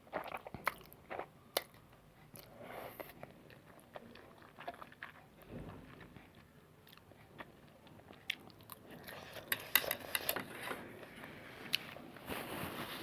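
A person eating spicy noodles close to the microphone: wet chewing and biting with many small mouth clicks, getting busier and louder about two-thirds of the way through.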